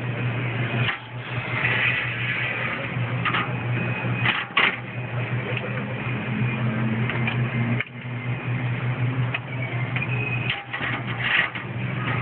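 A steady low mechanical hum with scattered clicks and knocks over it.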